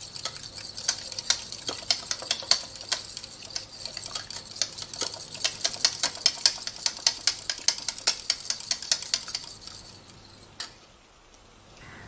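Metal fork whisking beaten eggs in a porcelain bowl, clicking against the sides of the bowl in a rapid steady rhythm that stops about ten seconds in.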